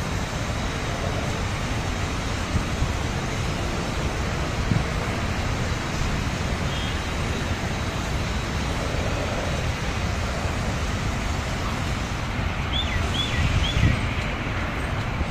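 Wind buffeting the microphone: a steady low rushing noise. Three short high chirps come near the end.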